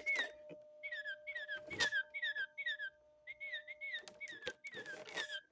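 Recorded song of a Baltimore oriole played back through a small speaker: a run of short, clear whistled notes, each dipping and rising, about two a second, with a short break midway. A faint steady hum lies underneath.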